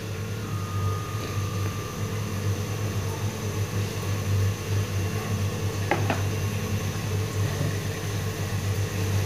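Steady low mechanical hum, with one light knock about six seconds in.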